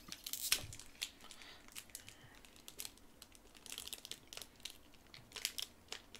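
Foil wrapper of a Digimon card game booster pack crinkling and tearing in irregular crackles as it is worked open by hand. The pack is hard to open. The loudest crackle comes about half a second in.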